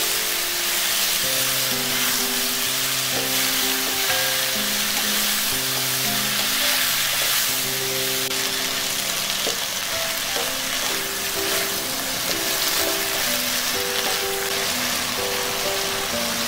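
Sliced Korean zucchini, onion and red chili sizzling in oil in a frying pan as they are stir-fried, with background music playing over it.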